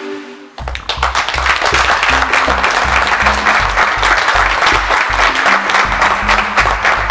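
Music with a fast, steady bass beat starts suddenly about half a second in, with applause and cheering over it.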